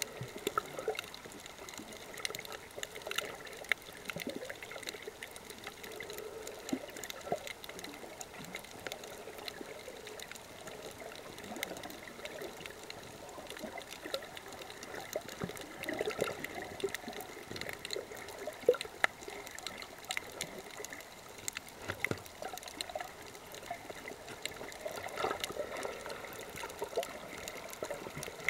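Underwater sound picked up by a camera on a coral reef: a steady gurgling, trickling water noise with scattered sharp clicks and crackles throughout.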